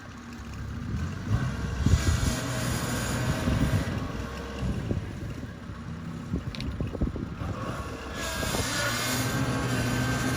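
Kubota rice combine harvester running, its engine a steady drone that grows louder about eight seconds in.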